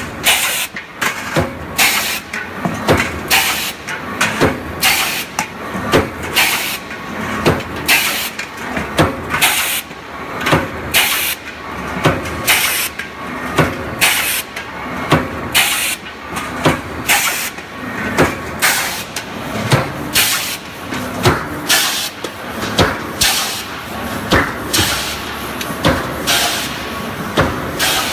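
Mechanical double-action power press running continuously through blank-and-draw strokes: a rapid, even rhythm of sharp clanks with hissing bursts, about one and a half a second, over the steady running of the machine.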